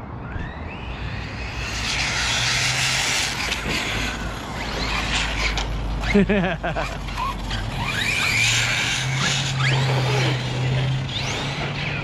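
Radio-controlled buggy driven fast on asphalt, its motor whining up and down in pitch as it speeds up and slows, over a hiss of tyres on the pavement. A brief warbling sound stands out about six seconds in.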